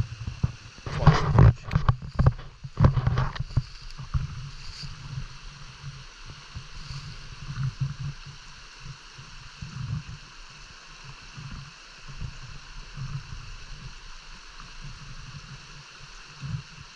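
Brook water running: a steady hiss with a low, uneven gurgling underneath. A cluster of sharp knocks and bumps comes about one to three seconds in.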